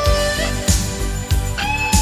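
Rock music with no singing: electric guitar holding and bending notes over a steady drum beat.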